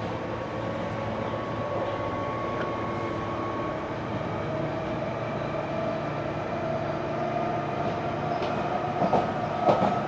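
London Underground 1995 Stock train heard from on board as it runs along the track, with a steady rumble and a motor whine that rises slowly in pitch. Near the end there are a couple of sharp clicks as the wheels go over rail joints.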